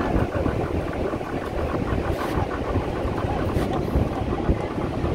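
Outboard motor of a small open fishing boat running steadily at low speed, with wind rumbling on the microphone.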